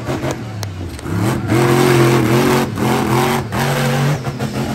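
Monster truck engine revving hard, its note rising and dipping as the throttle is worked, with a few brief lifts off the throttle.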